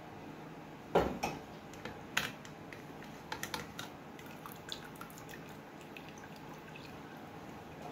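Boiled potatoes being drained in an aluminium colander over a glass bowl: a sharp knock of metal on metal about a second in, then a few lighter knocks and scattered clinks and drips as the colander is handled and the cooking water runs off.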